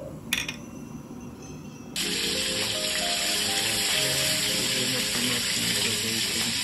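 Pot of water at a rolling boil, a steady hiss that starts abruptly about two seconds in, with background music playing over it. A single sharp click just before.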